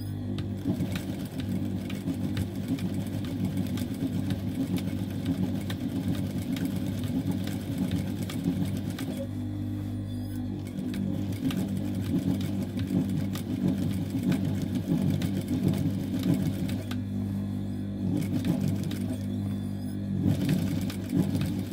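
Industrial lockstitch sewing machine running over denim, stitching back and forth to darn a tear, with a steady motor hum under a fast needle rattle. The stitching eases off briefly about nine seconds in and again around seventeen seconds.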